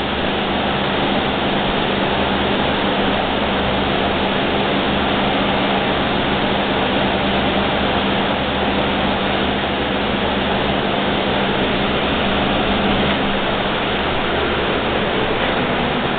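Steady mechanical hum and hiss: a low droning tone under an even rush of noise, unchanging throughout, as from a running household machine.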